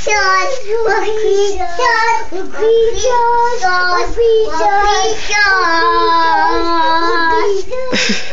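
A young child singing a high-pitched tune, with several notes held for a second or more. A short noisy burst cuts in near the end.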